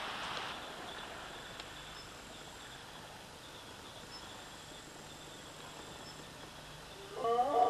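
Faint steady background hiss that drops away in the first half-second. About seven seconds in, a loud animal howl begins: several pitched voices sliding up together and then held.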